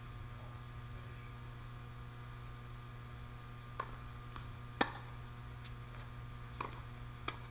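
Tennis ball being hit back and forth in a doubles rally: about six sharp pops from racquet strikes and court bounces in the second half, the loudest a little under five seconds in, over a steady low hum.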